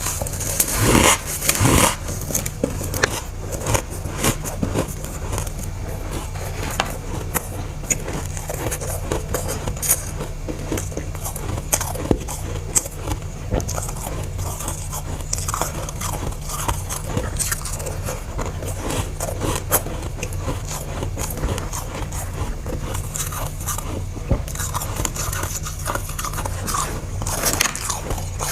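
Close-up biting and chewing of dry, powdery freezer frost: a dense, irregular run of crunches and crackles with scraping, the loudest about a second in, over a steady low hum.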